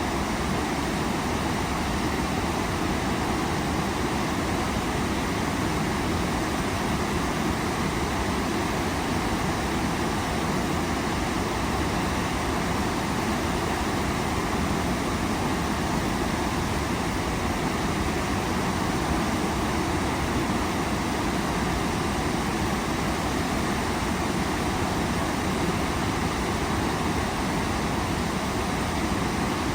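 Waterfall rushing steadily: a dense, even wash of water noise with no breaks.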